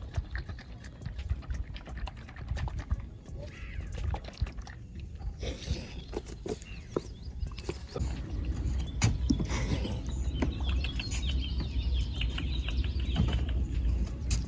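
Outdoor ambience at a pond: wind rumbling on the microphone, heavier in the second half, with scattered bird calls and small clicks.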